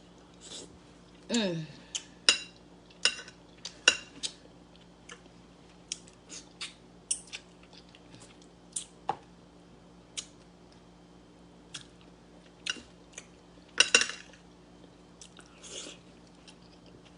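Close-up mouth sounds of someone eating stewed fish head: wet chewing, lip smacks and sucking clicks at an irregular pace, with a short hum of the voice about a second and a half in.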